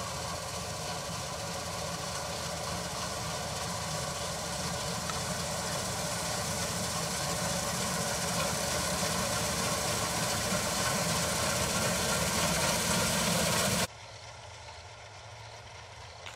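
Combine harvester running steadily while harvesting, a dense engine-and-machinery hum that grows slowly louder. Near the end it cuts abruptly to a quieter, more distant hum of the same kind.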